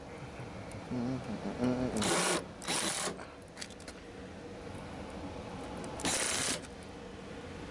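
Ridgid cordless impact driver with a long extension bit rattling on the screws of an HVAC unit's sheet-metal panel. It runs in three short bursts: two close together about two seconds in, and one about six seconds in.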